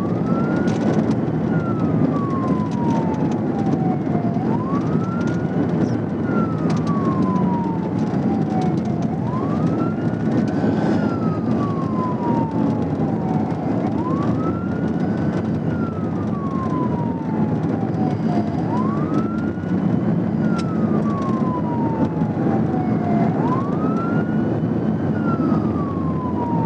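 Police car siren on wail, rising quickly and then sliding slowly down in pitch about every four seconds, over steady road and engine noise from the car at highway speed.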